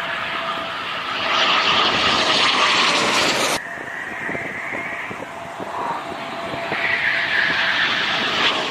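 Eurofighter Typhoon's twin EJ200 jet engines: a loud rushing jet noise that cuts off abruptly a bit over three seconds in. It is followed by a quieter jet noise with a high whine, which swells again near the end.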